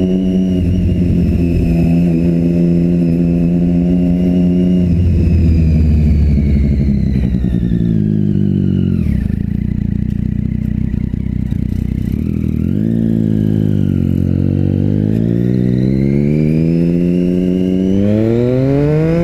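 Motorcycle engine through a newly fitted aftermarket G-Escape GP Carbon exhaust, heard while riding, running loud. The note holds steady, drops away about eight seconds in, then rises again, dipping briefly once and climbing steeply near the end as the bike is accelerated.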